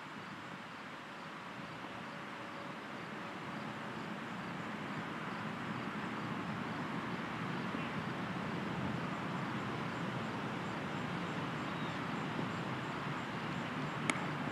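Steady outdoor background noise that slowly grows louder, with a single sharp click near the end.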